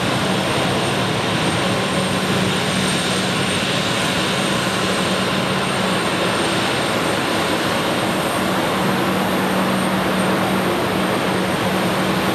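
Embraer 195's two GE CF34-10E turbofan engines running at taxi power as the airliner rolls slowly toward its stand: a steady jet rush with a constant high whistle and a low hum.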